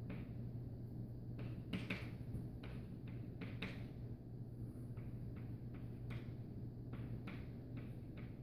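Chalk writing on a blackboard: irregular short taps and scratches of the chalk, about two or three a second, over a steady low hum.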